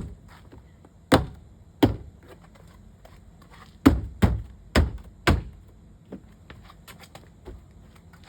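Hand striking a car door trim panel to snap its plastic retaining clips back into the door: about seven sharp thumps in the first five seconds, then lighter clicks and taps.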